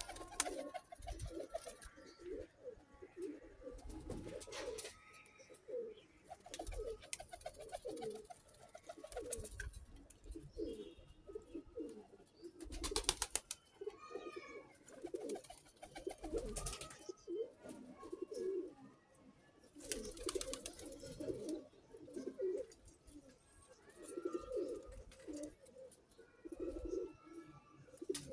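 Domestic pigeons cooing over and over, several birds overlapping, broken by a few short, loud bursts of noise.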